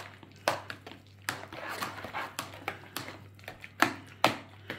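Hand masher pounding boiled potatoes with milk and butter in a metal pot: wet squelching mash with irregular knocks of the masher against the pot, the two loudest near the end.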